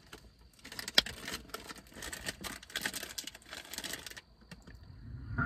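Light, irregular tapping and rustling: handling noise of hands on a phone or small controls, with one sharper click about a second in.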